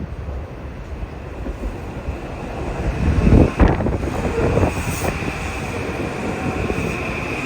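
Train passing at speed: a steady rumble of wheels on rail that swells to a loud rush about halfway through, followed by a steady high whine.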